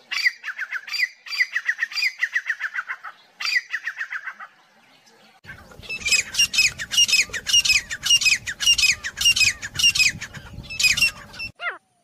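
Grey francolin calling: a fast run of short, falling notes, then from about halfway a louder, harsher series of repeated notes over a low rumble of background noise.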